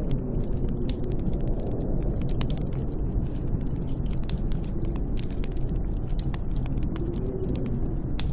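Snowstorm wind blowing steadily with a deep rumble and a faint wavering howl, with scattered sharp crackles throughout.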